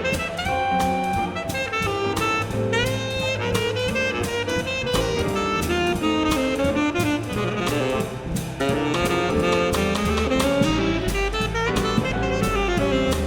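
Jazz quintet playing: a saxophone line over walking bass, piano and drum kit with cymbal strokes.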